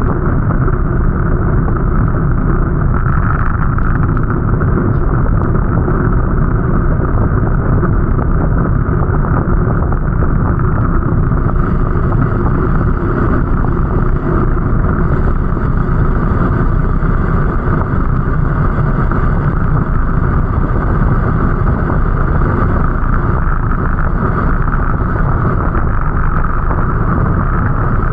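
Steady, unbroken vehicle running noise: a continuous low rumble with some wind on the microphone.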